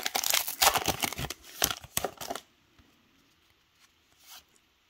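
Plastic wrapper of a Topps Heritage baseball card pack crinkling and tearing as it is pulled open by hand. It stops about halfway through.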